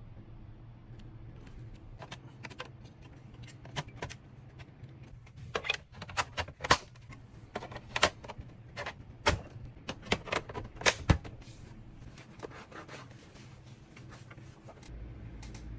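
A run of sharp, irregular clicks and taps, thickest in the middle, over a low steady hum.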